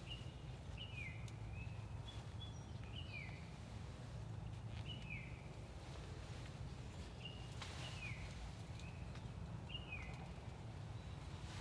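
A small bird calling over and over with short, high chirps that fall in pitch, roughly one every second, over a steady low rumble.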